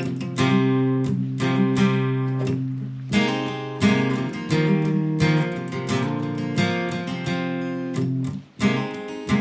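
Solo acoustic guitar music, chords strummed in a steady rhythm, with a brief break near the end.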